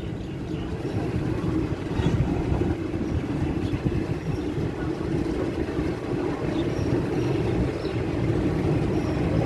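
Passenger train running along the track, a steady low rumble of wheels and running gear heard from aboard the carriage.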